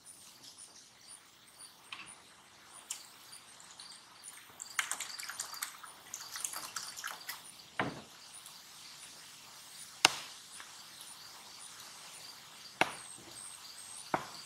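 Lemonade pouring from a plastic pitcher into a plastic cup for a couple of seconds around the middle, over small repeated bird chirps. Several sharp taps, the loudest about ten seconds in.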